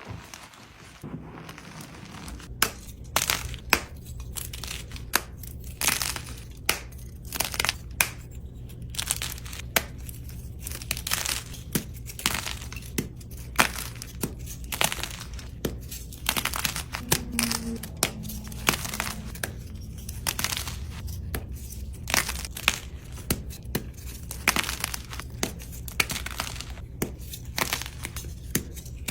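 Dry, dusty gym chalk crushed by hand, a run of crisp crunches and crumbles, one or two a second, over a steady low hum.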